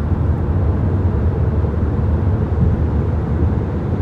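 Steady low rumble of tyre and engine noise inside a moving car's cabin as it drives through a road tunnel.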